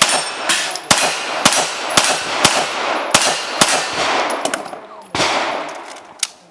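Pistol shots fired in a fast, even string, about two a second, each followed by a short echo; the pace slows in the last couple of seconds to two final, spaced shots.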